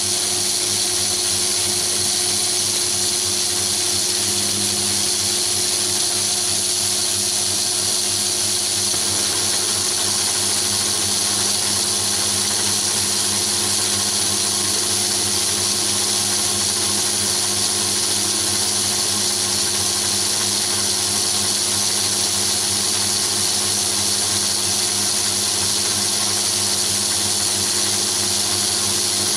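A metal-turning lathe running steadily under power, with a constant whine from its motor and drive, while a high-speed-steel vertical shear tool takes a light finishing cut along an aluminium bar.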